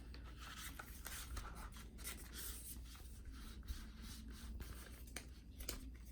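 Faint rubbing and scraping of a cardboard Apple Watch box and its packaging being handled and packed back together, with scattered light clicks and taps.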